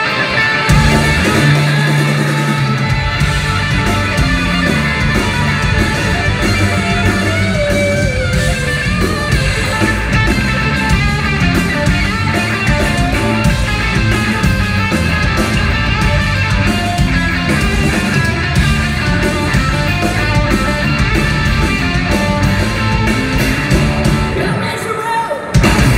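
Live hard rock band playing loud, heard from within the crowd: electric guitar, drums and a sung lead vocal. Near the end the band drops out for a moment and then comes back in.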